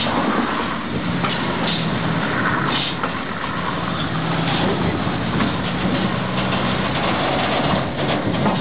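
Sulzer diesel engine of a heavy diesel-electric freight locomotive running as the locomotive rolls slowly past close by, a low engine hum fading in and out over steady mechanical noise, with scattered clicks from the running gear.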